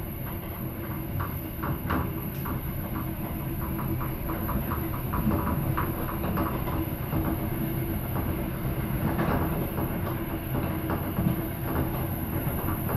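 Train running along the track at speed: a steady rumble of wheels on rail with frequent short clicks and rattles.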